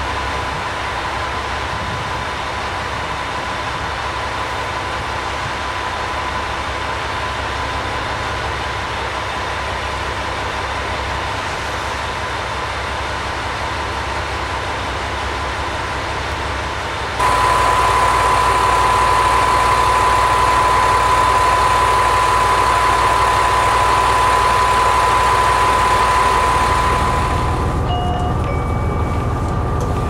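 KiHa 121 diesel railcar idling at a station: a steady engine hum with a constant high whine, which gets suddenly louder a little past halfway. A few short electronic tones sound near the end.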